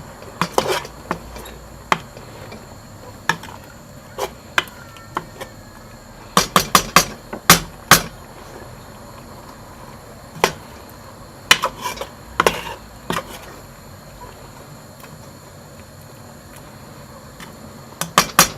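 A utensil stirring a thick, mashed herbal mixture in a cooking pot, knocking against the pot in irregular clusters of sharp clinks with quieter gaps between them.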